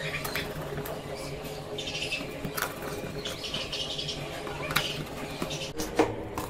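Light clicks and taps of small parts and a screwdriver being handled on a disassembled smartphone, over soft background music.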